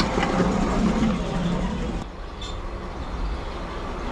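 Miniature railway train running, a steady noisy rumble with voices faintly in the background; about halfway through the sound drops abruptly and becomes quieter and thinner.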